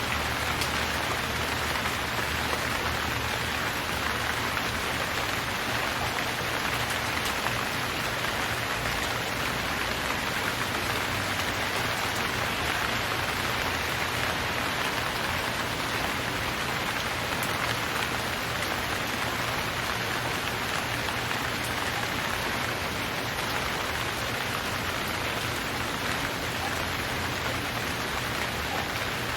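Steady rain falling, an even, unbroken hiss of many drops with no thunder.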